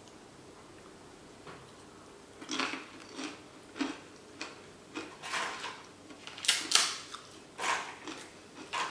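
A person eating a meal by hand: chewing and mouth sounds, with food being picked from the plate. After a quiet start there is a run of short, sharp noises, the loudest a close pair about two-thirds of the way through.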